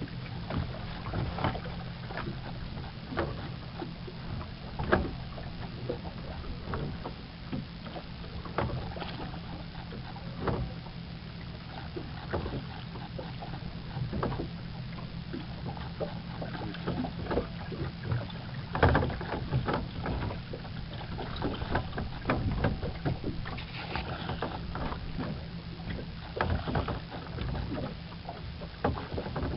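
Godyoto crank-driven sculling oar working a small wooden rowboat: irregular knocks and clicks from the oar and its mount on each stroke, over a steady low hum and lapping water.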